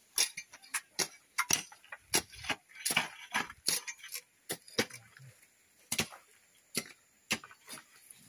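Hand tools, hoes and a steel bar, striking hard-packed earth around a bogged truck's wheels: irregular sharp strikes with a metallic clink, roughly two a second, thinning out in the second half.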